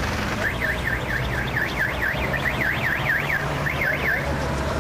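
An electronic siren warbling, its pitch sweeping quickly up and down about four times a second and stopping briefly shortly before it ends, over a steady low rumble.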